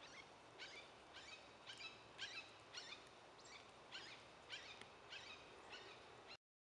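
Faint bird calls: a steady series of short, downward-slurred notes, about two a second, over quiet outdoor hiss. The calls cut off abruptly near the end.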